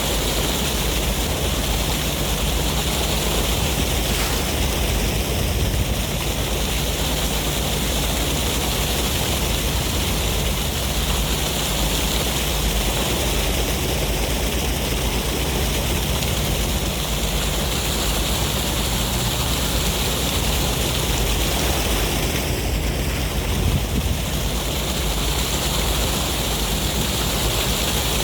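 Ocean surf and sea wind making a steady, dense rush of noise, with only slight slow swells and no separate wave crashes.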